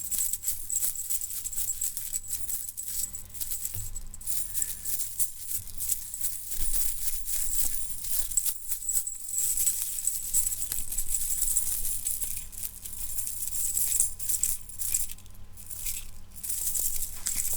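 Metal chain links rattling and clinking continuously as the chain is handled, a dense bright jingle that swells and dips in loudness.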